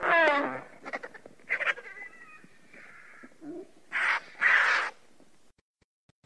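Vultures calling: a falling squeal at the start, a few quick clicks and a short squealing call a second or two in, then two harsh, hissing calls around four seconds in.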